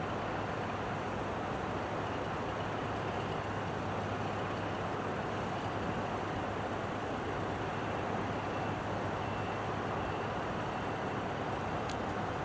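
A steady low engine drone under an even wash of rumbling noise, unchanging throughout, with one brief click near the end.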